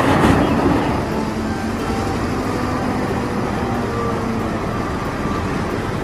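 Caterpillar 992G wheel loader's diesel engine running under load as its bucket dumps earth into a dump truck. The rush of pouring dirt is loudest in the first second, then the machine runs on steadily.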